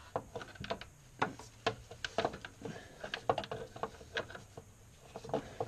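Irregular light clicks and taps of a socket wrench being worked onto a bolt under the motorcycle.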